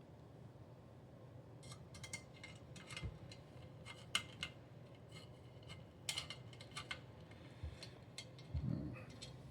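Light, irregular clicks and taps of small metal and plastic rack parts being handled and pushed into place, with a soft low bump near the end.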